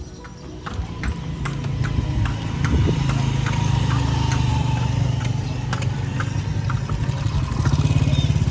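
Horse hooves of a kalesa (horse-drawn buggy) clip-clopping on the road at a steady walk, over the low steady hum of a motor vehicle's engine. The hoofbeats and engine come in about a second in.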